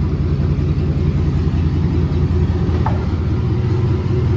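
GMC truck's engine and exhaust running steadily with a deep, even exhaust note, the exhaust leak freshly repaired.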